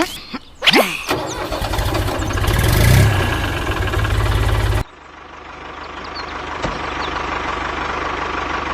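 A motor vehicle engine starts with a sharp burst and runs, its revs swelling up and easing back, then cuts off abruptly about five seconds in. An engine then runs steadily, slowly getting louder.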